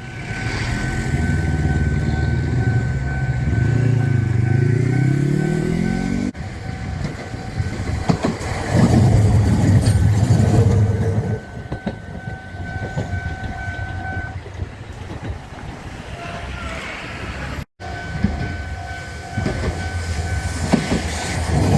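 A railway level-crossing alarm sounding as a steady two-tone warning while an electric rail vehicle passes. Its motor whine rises in pitch over the first few seconds, and wheel clicks on the rails are heard about halfway through. The alarm stops about two-thirds of the way in and starts again shortly after.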